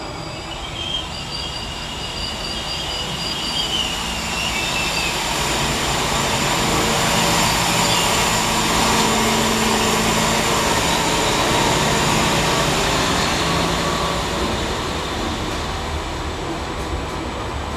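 Ferrovia Circumetnea's new DMU 001 "Vulcano" diesel multiple unit passing through a station. Its engine note and rail noise swell to a peak about halfway through and then fade. A high, thin squeal in the first few seconds drops in pitch around four seconds in.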